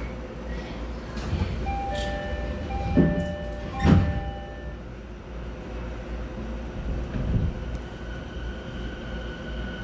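Refurbished 70-000 series electric train running, heard from inside the car: a steady low rumble, two loud knocks about three and four seconds in, and a short run of steady tones between them. A faint steady whine comes in near the end.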